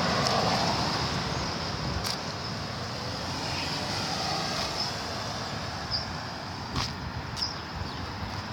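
Road traffic: cars passing on a busy street, loudest in the first second or so as one goes by, with a couple of brief sharp clicks.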